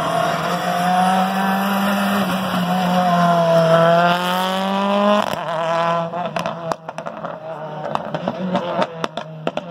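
Rally car engine revving hard, its pitch climbing for a couple of seconds and then cutting off abruptly about five seconds in, followed by a run of sharp pops and cracks.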